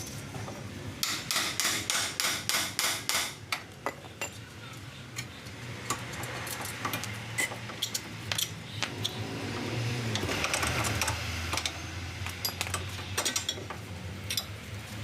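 Metal-on-metal hammer blows in a quick, even run of about five a second for a couple of seconds, then scattered clinks and knocks of steel tools. This is work on a car's front wheel hub and steering knuckle to get at a worn wheel bearing.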